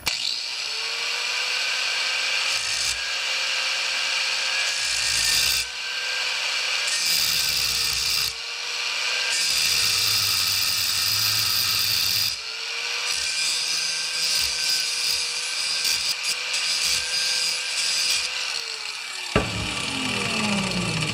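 Electric power tool working metal. The motor spins up, its note sags under load several times as the working noise comes and goes, and it winds down with a falling whine after it is switched off near the end.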